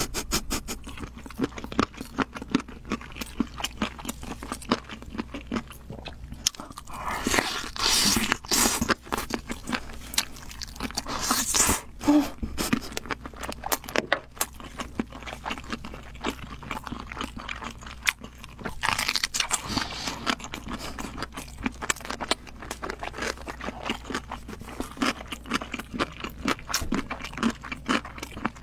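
Close-miked chewing of spicy stir-fried chicken drumsticks: wet, clicking mouth sounds throughout. Three louder hissing breaths come about a third of the way in, near the middle, and about two-thirds of the way through.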